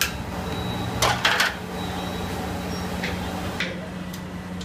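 A metal ladle knocking against a large aluminium cooking pot: three sharp clinks in quick succession about a second in and two fainter ones around three seconds, over a steady low hum.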